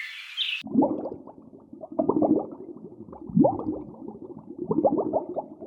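Birds chirping for a moment, then a sudden switch to farm animals making a busy run of short, low grunts and snorts, with one rising call about three and a half seconds in.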